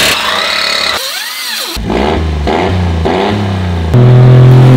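1996 Honda Acty mini truck's three-cylinder engine through a race exhaust, revving and running hard in a string of short cuts, with a brief rising-and-falling swoop about a second in. It is loudest near the end, where it holds a steady drone.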